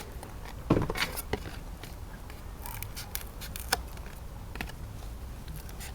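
Scissors snipping at a polystyrene foam tray: scattered short, faint cuts and clicks, with a louder snip about three quarters of a second in, as the wingtips are rounded off.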